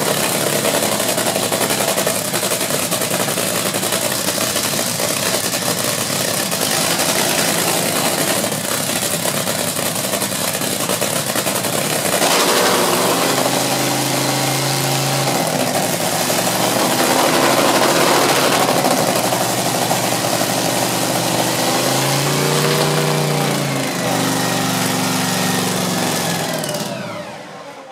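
Dragster's V8 race engine running loud and rough through open exhaust headers on its first start after a rebuild. In the second half the throttle is blipped several times, the pitch rising and falling. Near the end the engine is shut off and winds down.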